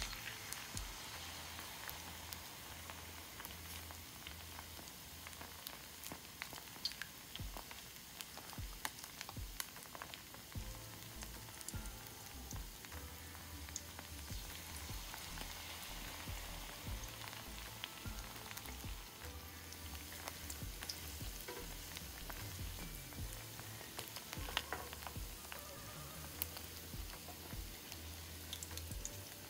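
Battered seaweed rolls (gimmari) deep-frying in hot oil: steady sizzling with many scattered crackles and pops.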